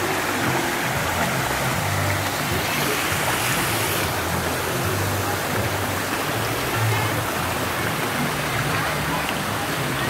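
Steady rush of running water in a shallow water-park splash pool, with music playing in the background.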